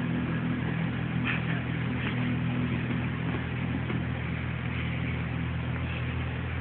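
A steady low hum, with a couple of faint scuffs about a second and two seconds in.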